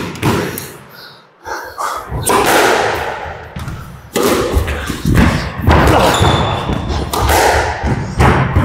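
Squash rally: a squash ball thudding off the court walls and being struck by rackets, in a quick, irregular run of sharp impacts.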